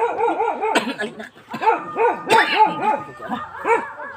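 A dog barking in a fast run of short yaps, about four or five a second, with a brief break about a second in.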